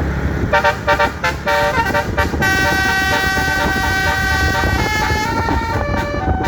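Basuri telolet multi-tone bus horn playing a tune over a steady low rumble. It plays a run of short quick notes, then one long held chord, then a few stepped notes.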